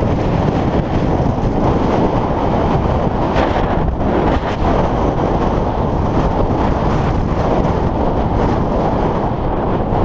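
Intense wind buffeting the camera microphone: a loud, steady rumble of wind noise.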